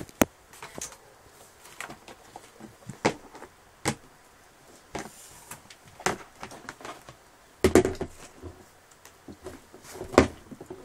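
Hard plastic toy stroller parts knocking and clicking together as they are handled and clipped into place: irregular sharp clicks and knocks, the loudest a little past three-quarters of the way through and again near the end.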